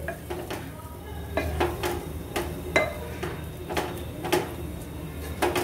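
Wooden spatula stirring thick dal paste and masala in a pressure cooker, scraping and knocking against the pot's sides and bottom in repeated irregular knocks, about two or three a second.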